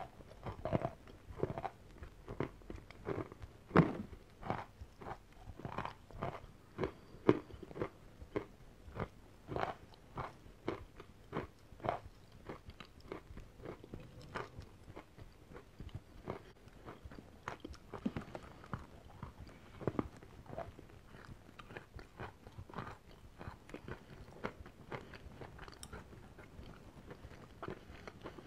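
A person crunching and chewing a mouthful of crumbly white chalk. Steady crunches come a little under two a second and grow softer in the second half.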